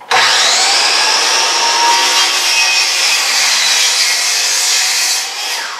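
DeWalt sliding compound miter saw starting suddenly and cutting through a wooden board with a steady whine, then spinning down near the end as the trigger is let go. The owner reckons the blade is pretty much shot.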